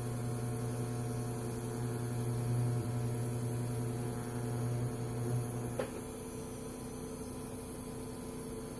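Miller Syncrowave 250 TIG welder running under arc on steel with a low, steady buzz, which stops abruptly with a click about two-thirds of the way through. The machine's steady hum carries on afterwards.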